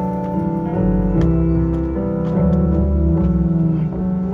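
Live band playing a slow passage, with piano chords changing every second or so over held notes and a steady bass.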